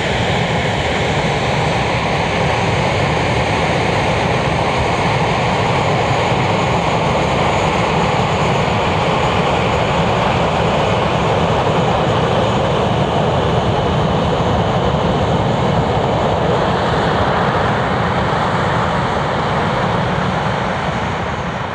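English Electric Lightning F6's two Rolls-Royce Avon turbojets running steadily at taxi power: a loud, even rush of jet noise with a high turbine whine over it, easing off slightly near the end.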